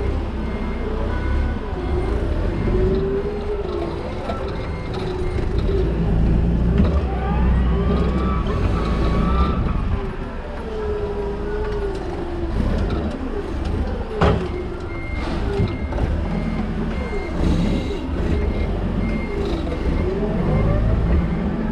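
Toyota counterbalance forklift driving and manoeuvring, heard from the driver's seat: a low running rumble under a whine that rises and falls in pitch. A sharp knock about fourteen seconds in, and from about fifteen seconds a run of evenly spaced high beeps.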